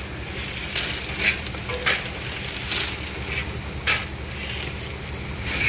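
Palm kernels pouring from a chute onto a heap in a truck bed, a steady rattling rush, with a metal shovel scraping through the kernels in short strokes every half second to a second. A low steady hum runs underneath.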